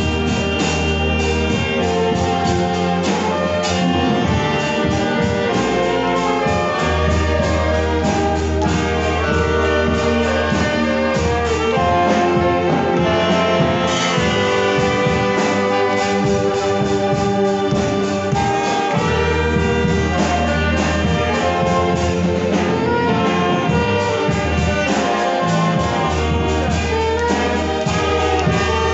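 Saxophones and violins playing a praise-song melody together, backed by a drum kit and keyboard with sustained low bass notes.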